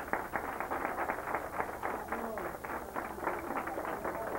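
A group of people clapping their hands: a quick run of many overlapping claps that keeps going steadily.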